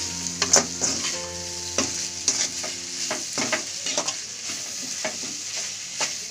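Vegetables and scrambled egg stir-frying in hot oil with a steady sizzle, while a spatula scrapes and knocks against the pan many times.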